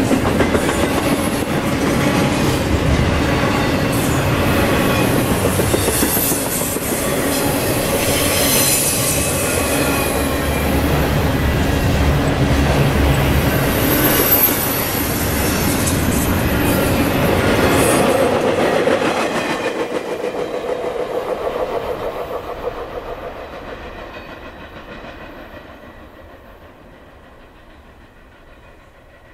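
Double-stack intermodal freight train's well cars rolling past, steel wheels rumbling and clattering on the rails, with a couple of brief high wheel squeals. About two-thirds of the way through the last car passes and the sound fades steadily away.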